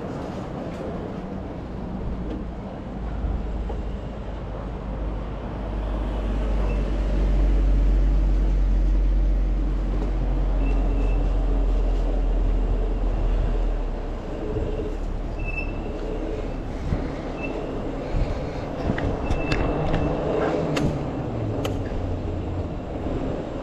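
Steady low rumble of wind and road noise from riding, heaviest in the middle stretch. Faint short high tones and a few sharp clicks come in the later part.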